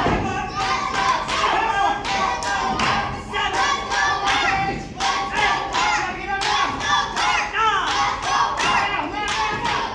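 Wrestling crowd clapping in a steady rhythm, a few claps a second, while many voices shout and chant over it.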